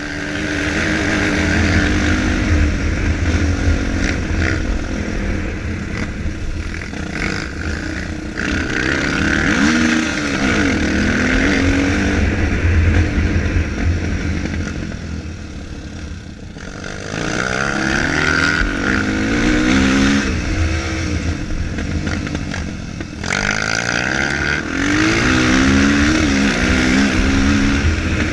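Single-cylinder four-stroke dirt bike engine being ridden hard, its note climbing and dropping again and again as the rider works the throttle and gears, with brief lulls about halfway through and again later on.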